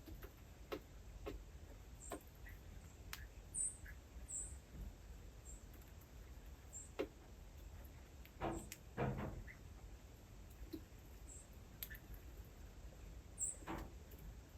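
Small animals giving short, high squeaks and chirps, scattered among soft clicks and taps.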